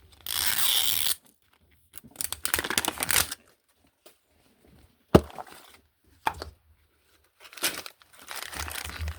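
Plastic wrapping being torn and pulled off a Mini Brands toy capsule in two long tearing pulls, then crinkling of the plastic, with one sharp click about halfway through.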